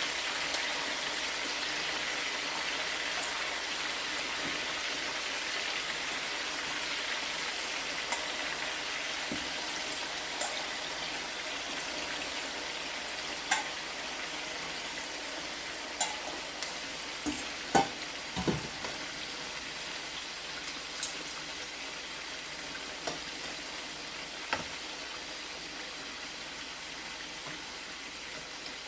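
Chicken wings deep-frying in a pan of hot oil: a steady sizzle that grows a little quieter toward the end. Scattered sharp clicks and taps in the middle stretch.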